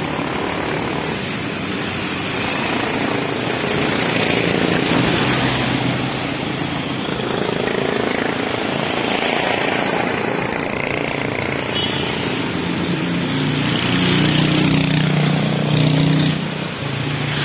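Steady rush of wind and traffic noise on a handheld phone microphone carried on a moving bicycle in city traffic. Near the end a motorcycle engine drones past.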